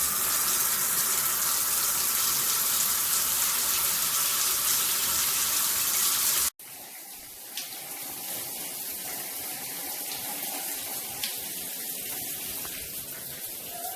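Water spraying steadily from a handheld shower head. The spray is loud at first, breaks off abruptly about six and a half seconds in, and then comes back as a quieter, steady run of water.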